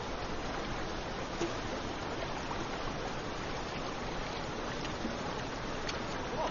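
A river flowing: a steady rush of running water.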